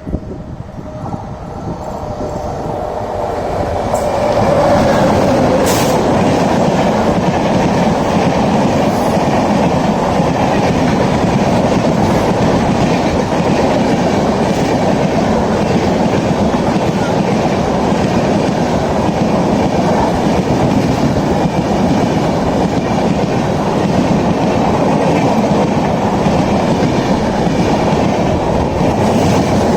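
Express passenger train hauled by a WAP7 electric locomotive running through a station at speed without stopping. It grows louder over the first four seconds as it arrives, then the coaches go past with a steady, loud rolling noise and wheel clatter.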